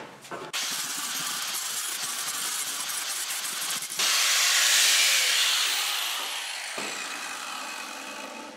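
Corded angle grinder started up and running, then biting into the thin sheet-metal top of an empty lacquer thinner can at about four seconds with a louder, harsher hiss. It is cutting the can's top off. The sound then slowly dies away as the grinder winds down.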